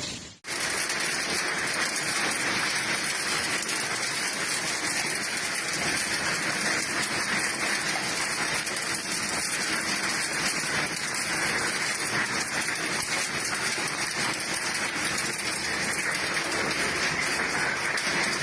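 Rain falling steadily, an even hiss that holds throughout after a brief dropout at the very start.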